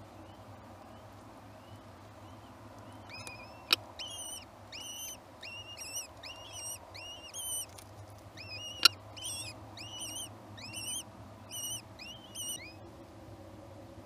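Common kestrel chicks begging while being fed: a quick run of short, high, arched cheeps, about two a second, starting about three seconds in and stopping near the end. Two sharp knocks stand out over the calls, one near the start of the calling and one midway.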